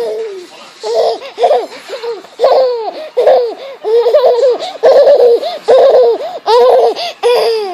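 A 12-month-old baby laughing hard: a long run of short, high-pitched laugh bursts, one after another.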